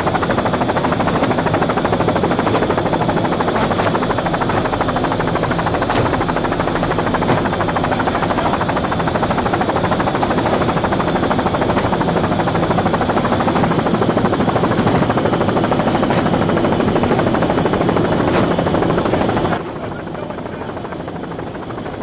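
Loud, steady engine drone mixed with rushing noise. Near the end it drops abruptly to a lower level.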